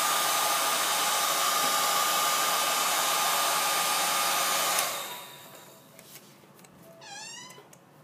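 Small handheld hair dryer running on its low setting, a steady rush of air with a thin whine. It is switched off about five seconds in and winds down. Near the end there is a short, high, wavering call.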